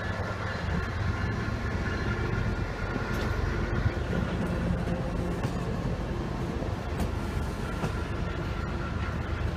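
MBTA commuter train of bilevel coaches rolling past close by: a steady rumble of wheels on rail, with a few faint clicks.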